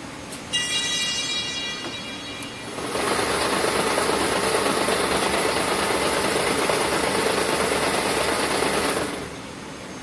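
Wire harness braiding machine starting, running steadily for about six seconds, then stopping near the end. About half a second in, a brief high buzzing tone sounds for about a second before the machine starts.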